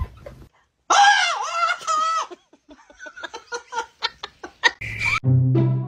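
A short high, wavering vocal sound about a second in, then a person giggling in many quick short bursts. Music begins near the end.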